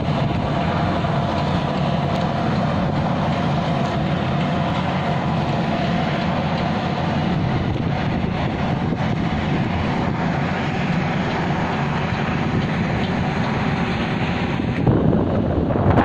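Steady drone of a large bulk carrier's engines and machinery as it passes close by, with a faint hum running through it. About a second before the end, wind begins buffeting the microphone.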